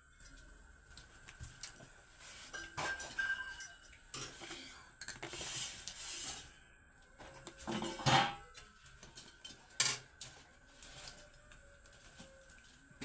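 Steel kitchenware clinking and scraping as Maggi noodles are tipped from a steel plate into a kadhai on a wood fire. There is a short hiss about five seconds in, and louder metallic knocks about eight seconds in and again near ten.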